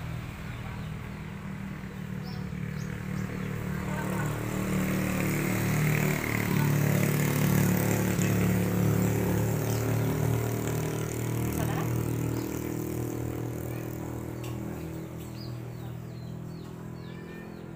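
A motor vehicle's engine passing by: it grows louder over several seconds, peaks about midway, then slowly fades.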